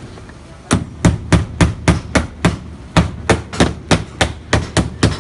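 Hammer driving a nail through a plastic junction box into the formwork: a quick run of about fifteen sharp blows, roughly three a second, starting about a second in with a short break midway.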